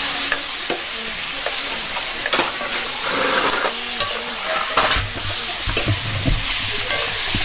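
Food sizzling as it fries in a metal kadai, with a metal ladle stirring and scraping against the pan in scattered clicks and knocks.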